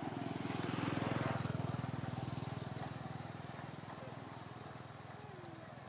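A motor vehicle's engine running, with a fast, even low pulsing. It grows louder to a peak about a second in, then slowly fades as it passes.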